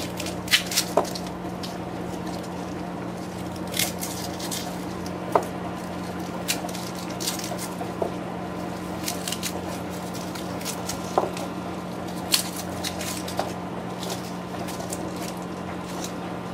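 A head of garlic being pulled apart by hand: irregular papery crackles and snaps as the cloves break away, with small knocks as they are set down on a plastic cutting board. A steady low hum runs underneath.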